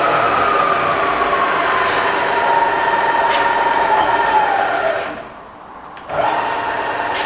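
Bridgeport milling machine's variable-speed head running with a whine that slowly falls in pitch, then winds down almost to quiet about five seconds in as the motor is switched off. A switch click follows, and the motor starts again with a rising whine, now running the spindle in reverse.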